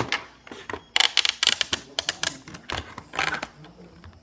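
Plastic packaging and box fastenings clicking and crackling in quick, irregular bursts as a Nerf Modulus stock is pulled free of its box.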